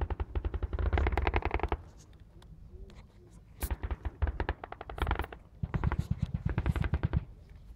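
Bursts of automatic gunfire, rapid evenly spaced shots: one long burst, then after a pause of about two seconds three more bursts, the last one the longest.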